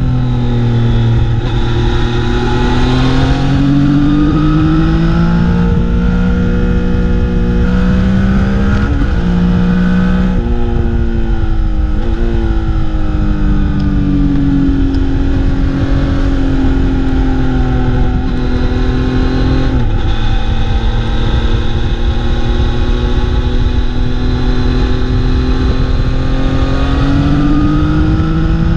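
Motorcycle engine heard on board while riding, its pitch rising and falling with the throttle and stepping abruptly at several gear changes, over a constant low rush of wind.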